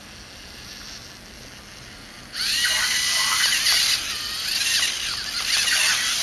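Lego Mindstorms NXT robots' electric motors and gear trains whining and rattling as the two robots drive into each other and push, the whine sliding up and down in pitch. It starts suddenly about two and a half seconds in, after a quieter stretch.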